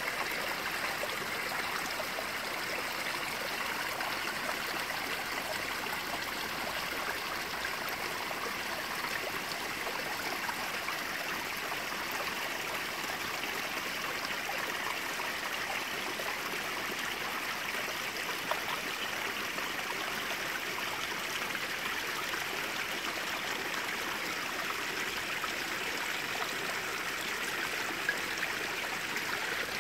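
Water trickling and splashing steadily down a stone rockery cascade into a garden pond.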